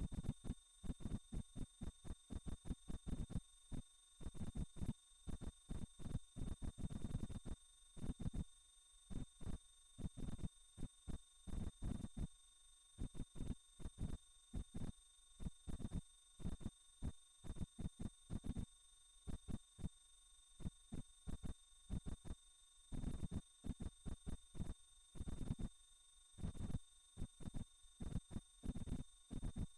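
A single very high-pitched synthetic sine tone held steady, pulsing evenly in loudness several times a second: a 'healing frequency' sound-therapy tone.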